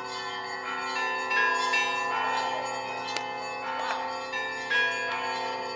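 Russian Orthodox church bells ringing a peal. Several bells of different pitch are struck in turn, with a new stroke about every half second to a second, over the long, steady hum of the lower bells.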